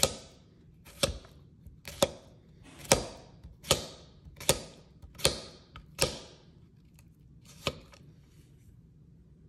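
A chef's knife slicing down through a small Persian cucumber, about nine crisp strokes roughly one a second, with a slightly longer pause before the last one. Each stroke ends in a sharp click as the blade stops on the chopsticks laid either side, which keep it from cutting all the way through.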